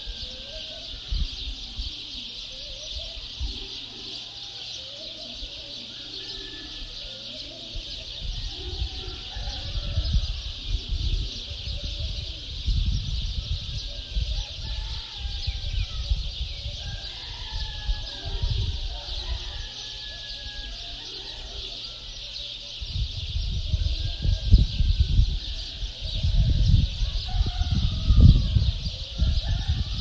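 Small birds chirping and calling in a morning chorus over a steady high hiss. Spells of low rumble come and go, loudest in the last third.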